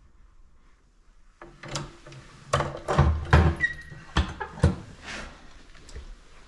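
A cast-iron wood stove's door and its detachable coiled-spring handle being worked: a run of sharp metal knocks and clanks starting about a second and a half in, with a brief squeak partway through.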